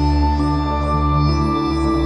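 Ambient electronic background music: held synthesizer tones over a steady low drone, shifting to new notes partway through.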